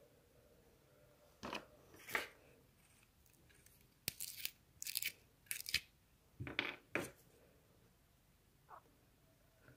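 Hands handling cardboard parts on a desk: a string of short rustles and clicks, about half a dozen, between roughly one and a half and seven seconds in.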